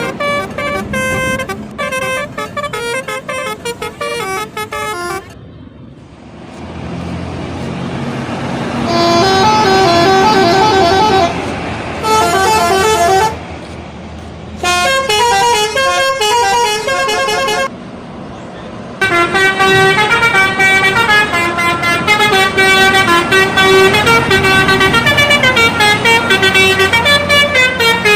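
Indonesian bus 'telolet' horns playing loud, quick melodic patterns of several notes, over a bus engine running. The horn drops out for a few seconds about a fifth of the way in, while engine and traffic noise rise, and stops twice more briefly before playing on steadily to the end.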